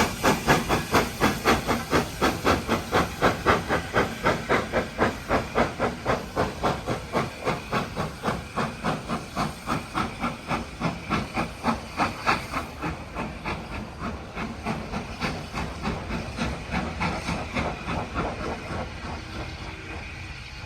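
Standard-gauge steam locomotive working hard up a steep incline, its exhaust beating in an even rhythm of about two and a half chuffs a second with hissing steam. The beats fade slowly over the second half as the engine draws away.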